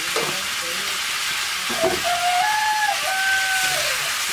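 Chicken and spices sizzling as they fry in the pan, a steady hiss, with two short knocks. Two brief held whistle-like tones sound in the second half.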